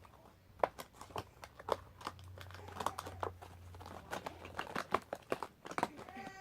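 Speed cube packaging being opened and handled by hand: crinkling and rustling with many irregular small clicks and taps.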